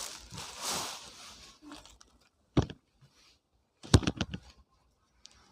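Plastic packaging rustling and crinkling as clothes are handled, fading out after about a second, followed by a single sharp click and then a quick cluster of clicks and taps.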